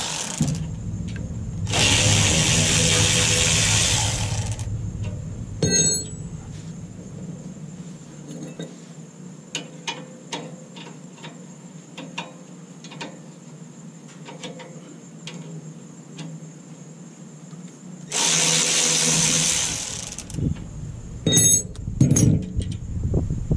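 Cordless power tool running in two bursts of a few seconds each, about two seconds in and again near the end, spinning out the 13 mm caliper bolts of a 2016 Ford F-150's rear brake caliper. Light metallic clinks of tools and parts come between and after the bursts.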